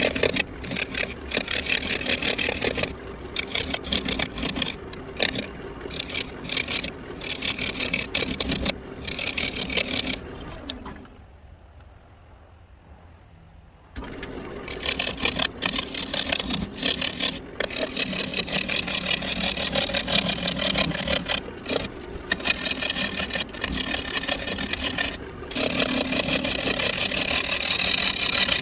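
Wood lathe turning an irregular walnut blank, a turning tool cutting into the wood with a scraping sound that cuts in and out rapidly. The cutting stops for about three seconds in the middle, leaving a low hum, then resumes.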